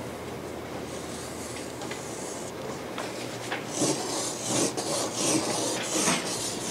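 Chalk scraping on a blackboard as a curve and a series of loops are drawn: a light stroke about a second in, then several quick scratchy strokes in succession from a little before four seconds in.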